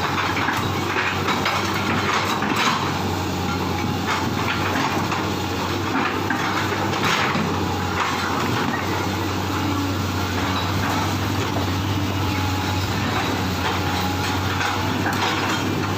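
Excavator's diesel engine running steadily, with scattered clanks and scrapes of metal working soil and debris.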